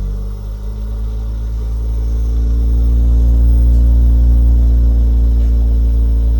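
British Gas 532i gas boiler, casing off, starting up with a loud, low, steady hum that comes in suddenly and builds over the first few seconds before holding level. This is the abnormal noise the boiler makes when running, whose cause is not given.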